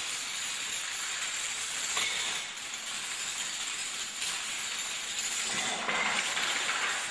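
Dominoes toppling in a long chain reaction: a fast, continuous clatter of small pieces knocking each other over, briefly louder near the end.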